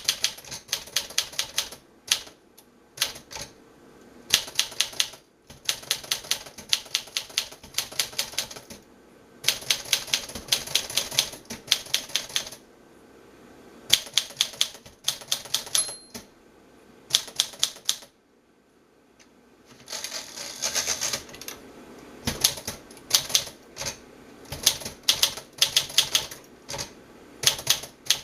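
1952 Smith-Corona Silent manual typewriter being typed on: runs of sharp key strikes, several a second, broken by short pauses between words and lines.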